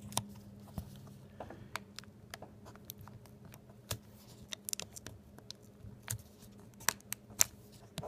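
Faint, irregular clicks and taps of fingertips working the display cable connector onto the back of a laptop LCD panel, with a couple of sharper clicks near the end, over a faint steady low hum.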